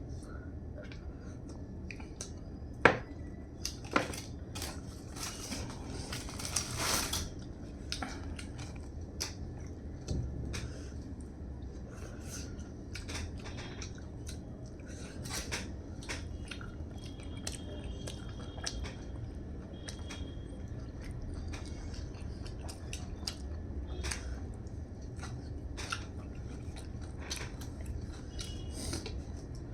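Close-miked eating: chewing and biting with wet, crackly mouth sounds, broken by small clicks of food and utensils against a plate. Two sharp knocks stand out about 3 and 4 seconds in.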